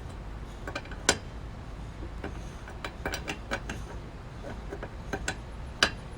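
Irregular metallic clicks and taps of a hand tool on the wheel's over-tightened lug nuts, with two louder knocks, about a second in and near the end.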